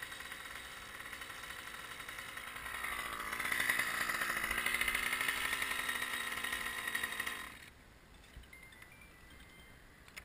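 An engine running, growing louder about three seconds in, then cutting off suddenly about three-quarters of the way through.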